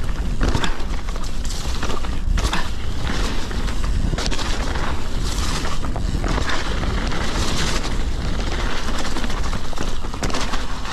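Mountain bike going down a rough trail: wind rushing over the microphone, with the bike rattling and many sharp knocks as it goes over bumps.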